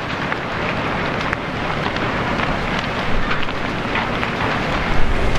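Large building fire burning: a steady rushing noise thick with crackling and popping from the burning wreckage, with one sharper pop about five seconds in.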